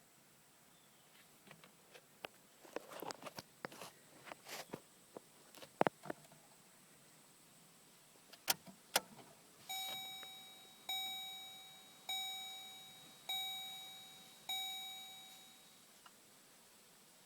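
Keys jangling and clicking, then two sharp clicks, then a vehicle warning chime dinging five times about a second apart, each ding fading away; no engine is heard running.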